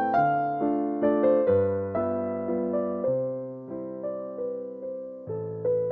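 Background piano music: a calm melody of single notes, each struck and then fading, about two or three a second.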